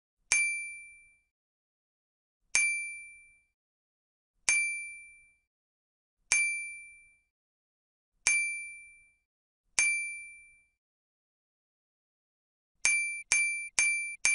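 A bright, high bell-like ding, struck six times about two seconds apart, each ringing out and dying away within about a second. Near the end it turns into a quick run of four short dings.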